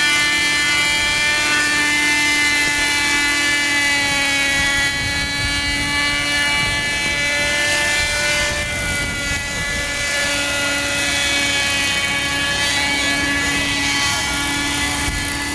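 Hirobo Shuttle RC helicopter's small nitro glow engine and rotor running steadily as it flies low over the water. The engine note wavers slightly in pitch as the throttle shifts.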